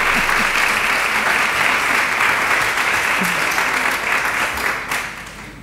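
Audience applauding, a dense, even clapping that dies away about five seconds in.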